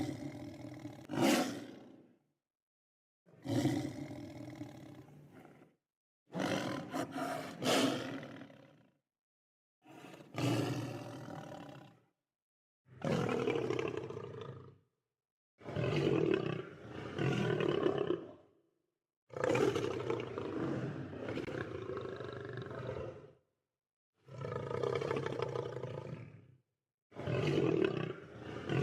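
Lion roars: about nine separate calls, each two to four seconds long, cut apart by short silent gaps.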